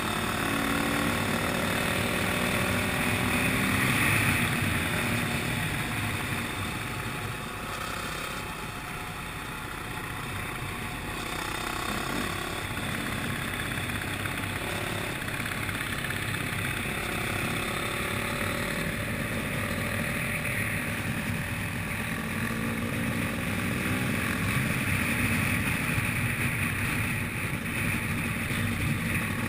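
Enduro dirt bike engines running on the move, the engine note rising and falling with the throttle, over a steady rush of wind and road noise.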